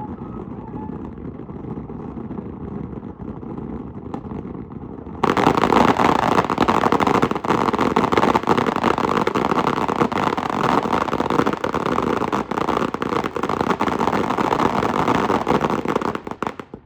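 Large long-burning firework spraying: a steady hiss that jumps abruptly much louder and brighter about five seconds in, full of dense crackling, then cuts off sharply near the end.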